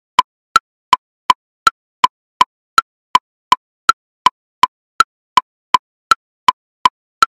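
Metronome woodblock clicks in triplets at 54 beats per minute: a high click on each beat followed by two lower clicks, about three evenly spaced clicks a second.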